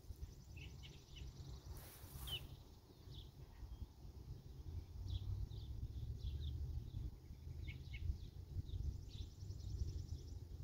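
Outdoor ambience: small birds giving short, scattered chirps over a steady low rumble, with a fast high trill near the end.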